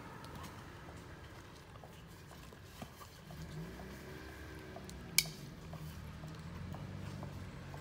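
Several cats eating wet food from a plastic tray: soft chewing and lapping with many small clicks against the tray, and one sharp click about five seconds in. A low steady hum comes in about three seconds in.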